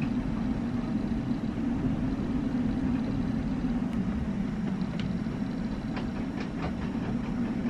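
Strong gusty wind heard from inside a sailboat's cabin at anchor: a steady low rumble, with a few faint clicks and creaks a little past the middle.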